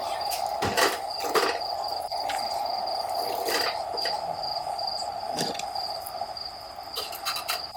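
Crickets trilling steadily in a high, pulsing tone over a steady lower drone, with several sharp clicks scattered through.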